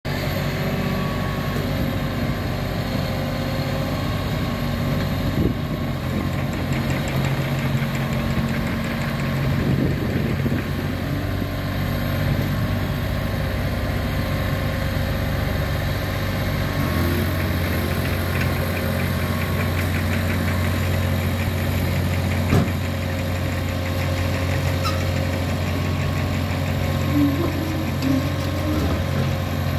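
Caterpillar D6N LGP crawler dozer's diesel engine running steadily while the stationary machine raises, tilts and lowers its blade on its hydraulics. The engine note shifts about halfway through, and there is a single sharp knock a little later.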